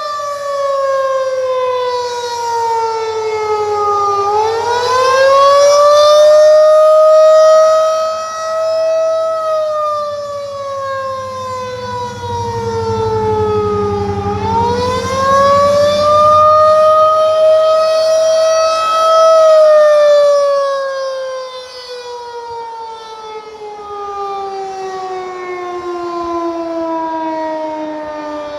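Federal Signal 2001-DC outdoor warning siren sounding the attack signal: its tone falls, swoops back up and holds high, twice over. About two-thirds of the way in it begins a long, slow fall in pitch as the siren winds down.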